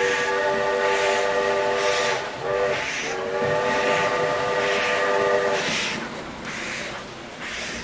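Sound effects from a Märklin model steam locomotive: a chord-like steam whistle blows a long blast, a short toot, then a second long blast that stops about three-quarters of the way through. Under it runs a steady rhythmic steam chuffing of roughly one to two puffs a second.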